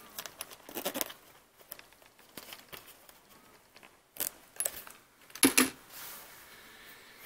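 Handling clicks and short zipper rasps as a zippered hard-shell phone case is closed, then a knock about five and a half seconds in as the case is set down on a wooden desk.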